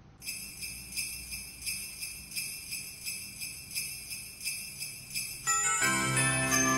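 Background music: sleigh bells shaken in a steady beat, about three jingles a second. Near the end a fuller Christmas-style track with a bass line and other instruments comes in, and it is louder.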